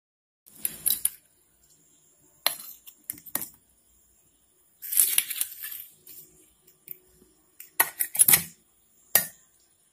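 Scattered clinks and knocks of a steel mixer jar and spoon being handled as a lump of frozen milk goes into the papaya paste, with a short rustle about five seconds in.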